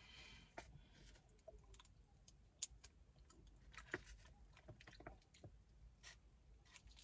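Quiet chewing of a hard-shell taco: scattered soft clicks and small crunches from the mouth, a little stronger about three and four seconds in.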